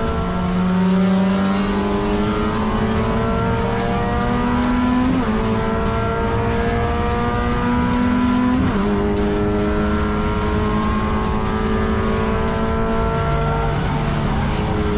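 Honda Brio race car's engine at racing speed, its note climbing slowly in pitch and breaking off sharply at gear changes about 5, 9 and 14 seconds in. Background music plays underneath.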